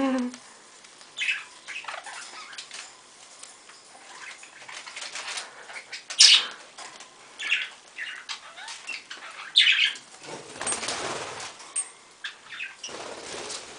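Pet budgerigars making scattered short, high chirps. About ten seconds in there is a brief flutter of wings.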